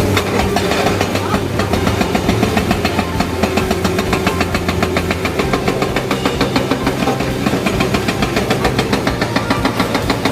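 Excavator-mounted hydraulic rock breaker hammering andesite in rapid, even blows, with the excavator's engine running underneath.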